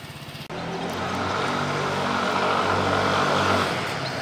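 Maxi-scooter engine running steadily under light throttle, a low even drone that eases off near the end.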